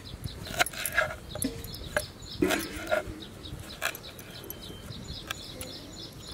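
Kitchen knife chopping fresh coriander on a wooden cutting board: irregular sharp knocks of the blade, a few a second. A couple of short, faint cries sound in the background.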